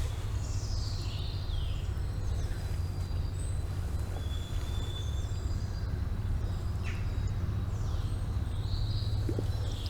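Small birds calling: short whistles and gliding chirps scattered through, over a steady low rumble.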